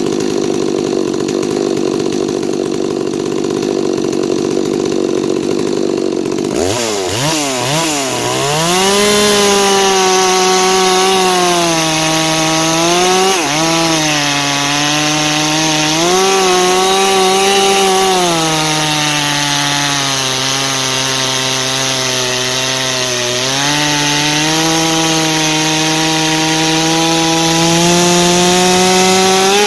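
Farmertec Holzfforma G660 two-stroke chainsaw running, then about six and a half seconds in the chain bites into a dry hardwood log. The engine settles into the cut under load, its pitch dipping and recovering as the cutter pressure changes.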